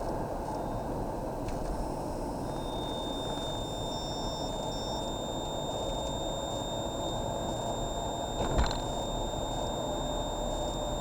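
Car cabin with steady road and engine noise; about two and a half seconds in, a thin high-pitched whine from behind the dashboard near the central air-conditioning console starts and holds steady. It is an intermittent whine that the owner hears mostly when off the accelerator or braking, and it is unrelated to the audio system. A brief knock sounds near the end.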